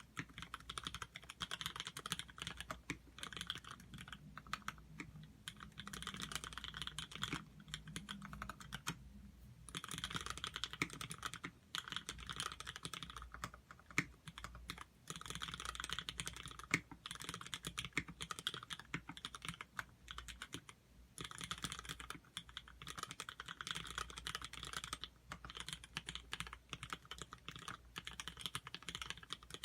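Fast typing on a custom mechanical keyboard with vintage black linear switches on 51 g springs: a dense run of key clacks in bursts of a few seconds, with short pauses about nine seconds in and again about twenty-one seconds in.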